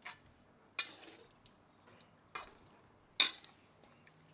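A utensil scraping and clinking against a pot while stirring meat in sauce, in four separate strokes, the loudest near the end.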